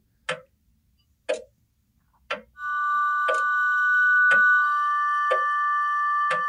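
A clock ticking once a second. About two and a half seconds in, a sustained high chord of held notes comes in beneath the ticking, and a third, higher note joins it near the middle.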